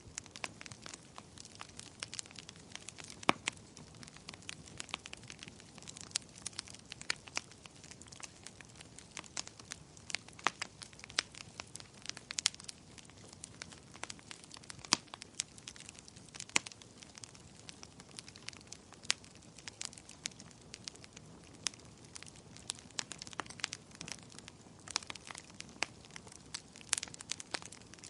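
Wood fire crackling in a fireplace: many irregular sharp pops and snaps, a few louder than the rest, over a soft low rush of the flames.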